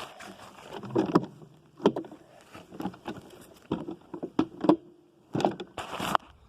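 Clunks, knocks and short metallic creaks from handling a walk-behind lawn mower as its wheel-height lever is moved between notches, with a brief scraping rush a little before the end.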